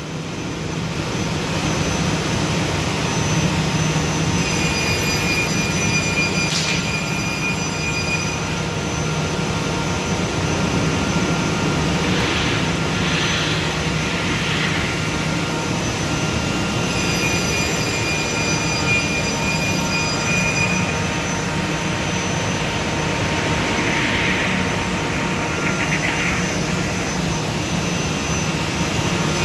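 Industrial panel saw running and cutting through sheets of plywood for a speaker cabinet. The machine noise is loud and steady, and twice a high whine rises over it for a few seconds as the blade cuts.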